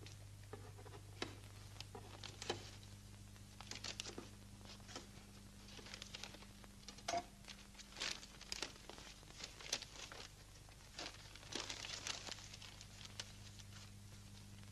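Paper and cardboard crinkling, rustling and tearing as a parcel box is opened and its paper wrapping pulled apart by hand, in irregular bursts of crackle. A steady low hum runs underneath.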